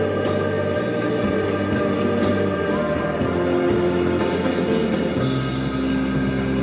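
Music: a song with held instrumental chords changing every second or so.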